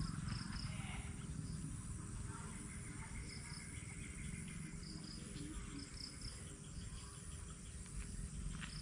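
Faint outdoor wildlife ambience: short high-pitched chirps, many in quick pairs, scattered throughout, with a thin steady high buzz for a couple of seconds, over a low rumble.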